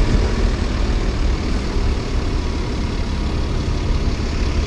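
City bus engine running right beside the microphone: a steady, loud, low rumble.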